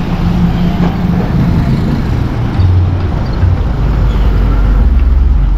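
Road traffic noise: a vehicle's engine hum fades out about a second and a half in, then a heavier low rumble of passing traffic builds toward the end.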